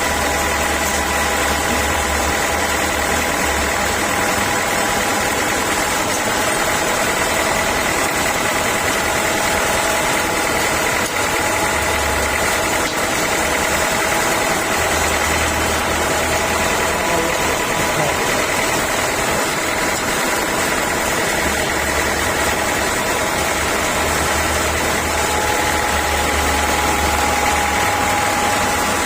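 Sawmill saw machinery running steadily, a dense mechanical noise with a steady high whine. A low hum drops in and out every few seconds.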